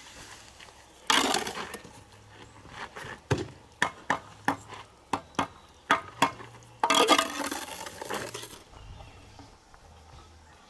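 A run of sharp, irregular knocks and clinks, about a dozen in three seconds, set between two short bursts of rough noise.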